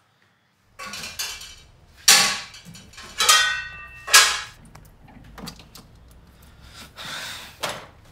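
A refrigerator being opened and rummaged: a series of separate knocks and clinks of containers, one about three seconds in with a short glassy ring.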